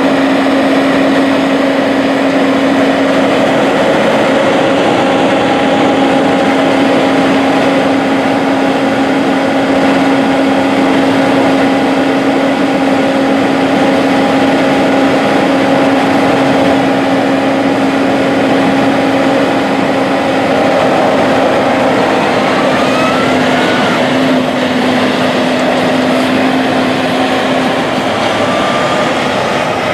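Harvest vehicles travelling along a road: a steady, loud engine drone with a constant hum. A couple of short rising whines come in the second half.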